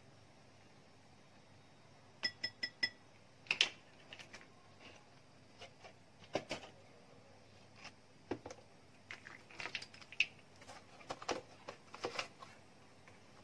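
Plastic measuring spoon and ingredient tubs handled while measuring out baking powder and baking soda: four quick ringing taps about two seconds in, then scattered clicks, scrapes and light rustles of the packaging.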